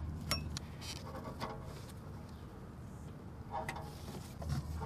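A few light, sharp clicks and taps of a wrench and hand tools on a car's A/C hose fitting, spread over the few seconds, with a faint low hum underneath.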